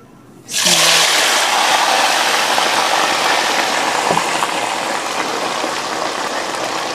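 Food going into hot oil in a wok and frying: a sudden loud sizzle about half a second in that holds as a steady hiss, easing only slightly.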